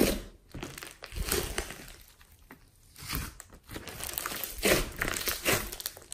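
Slime being squeezed and pressed by hand, sticky crackling sounds in irregular bursts, with a quiet gap about two seconds in.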